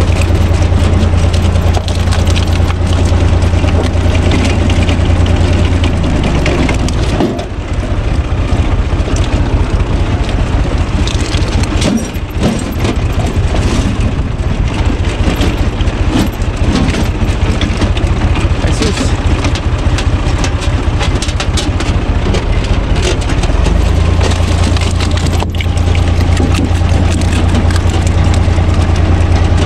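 Universal U445 tractor's diesel engine running steadily while driving a screw-cone log splitter. About seven seconds in, the engine note drops as the engine takes up load while the cone bores into a log, and it rises again near the end. Sharp cracks of wood splitting come through over the engine.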